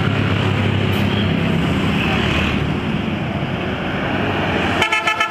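Intercity bus engine running as the bus pulls away, over road traffic noise. Near the end a horn starts sounding in rapid pulses.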